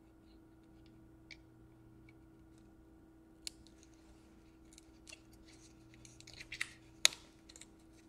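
Faint scattered clicks and crinkles of fingers working a laptop's flat ribbon cable and its adhesive tape loose from the motherboard. They get busier about six seconds in, with one sharp click near seven seconds, over a steady low hum.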